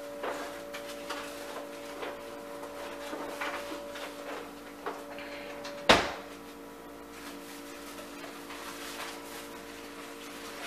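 Kitchen cupboard doors and drawers being opened and shut: scattered small knocks and clatter, with one sharp bang about six seconds in. A steady hum runs underneath.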